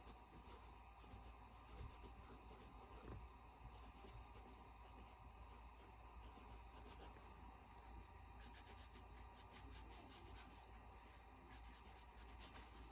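Faint scratching of a Rotring Art Pen fountain pen's medium steel nib writing on notebook paper, in short irregular strokes.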